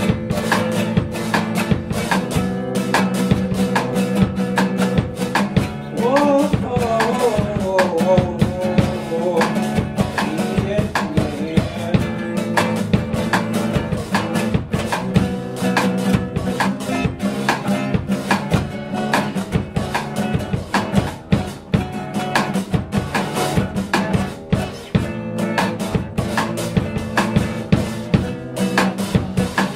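Live duet of a nylon-string classical guitar and a Gretsch drum kit: guitar chords over busy, quick drumming on kick, snare and rims with no pause.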